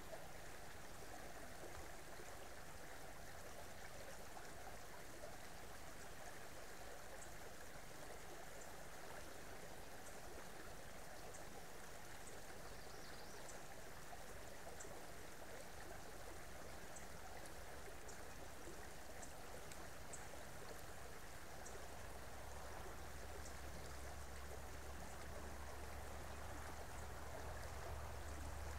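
Creek water running steadily, a faint, even rush. A low rumble builds up under it in the second half, and faint short high ticks come now and then.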